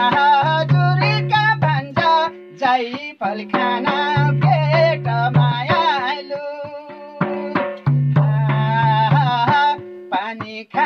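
A man singing a Nepali folk song in a wavering, ornamented voice with held, shaking notes, accompanying himself on a madal, a two-headed hand drum, struck in a steady rhythm with deep resonant bass strokes.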